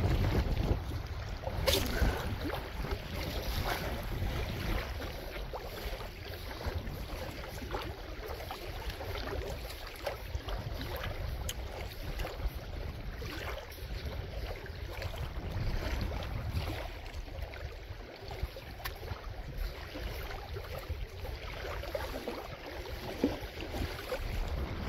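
Wind rumbling on the microphone over a steady outdoor hiss, with scattered small clicks and rustles as a wet magnet-fishing rope is hauled in hand over hand.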